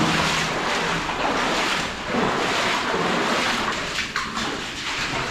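Steady rushing, sloshing noise of people walking through a wet, partly flooded mine tunnel, with a few brief louder knocks or splashes.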